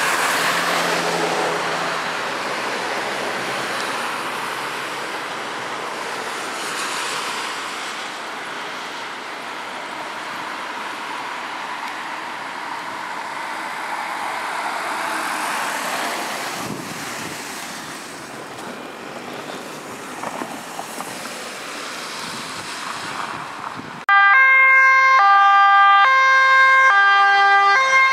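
A police van's siren sweeping up and down in pitch over passing traffic. About 24 seconds in, a cut brings a much louder ambulance two-tone siren, stepping back and forth between a high and a low note.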